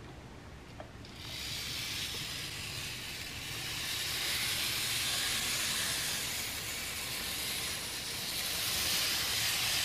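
A late-1970s TOMIX N gauge KiHa 58 series diesel railcar model starting to run once the power is turned up, about a second in: a steady high hiss of its small motor and wheels on the rails that grows gradually louder.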